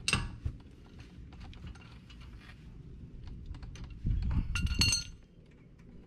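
Light metal clicks of a wrench turning out a loosened 17 mm brake caliper bolt, with a sharp clank at the start and a louder ringing metallic clink about four seconds in.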